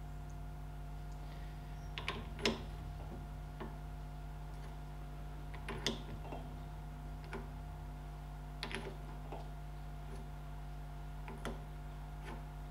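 Socket ratchet wrench clicking in short scattered bursts as it backs off the castellated nut on a tractor front wheel hub, easing the preload on the hub's bearings. The sharpest clicks come about two and a half and six seconds in, over a steady low hum.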